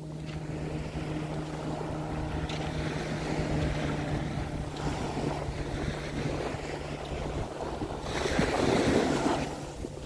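Small ocean waves washing up and drawing back on a sandy beach, with wind on the microphone; a wave comes in louder near the end.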